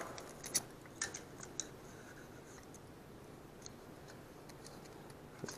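A few faint light metallic clicks of a steel feeler gauge set's blades being fanned out on their pivot to pick a thickness, in the first second and a half, then only faint handling.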